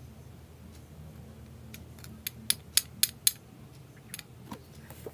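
Sharp metallic clicks and clinks from Metal Fight Beyblade tops being handled, a quick run of about five, some four a second, near the middle.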